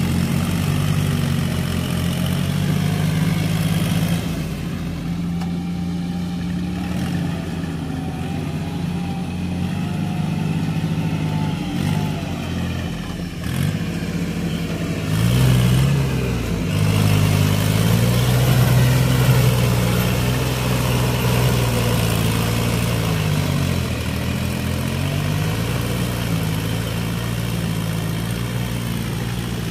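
A tractor's diesel engine running under load while it pulls a rotary tiller through a muddy paddy field. Its speed rises and falls as it works, most noticeably around the middle.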